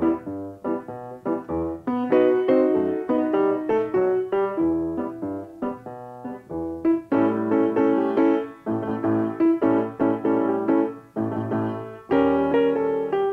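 Instrumental piano music: a run of quick notes over lower chords, growing fuller and louder about seven seconds in.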